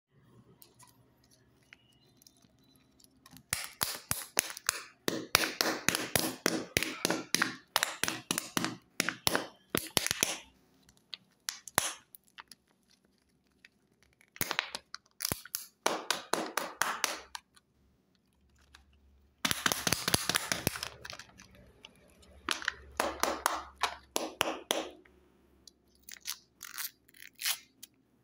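Thin plastic wrappers on chocolate surprise eggs crinkling and tearing as they are peeled off by hand, in dense crackling spells of a few seconds with short pauses between.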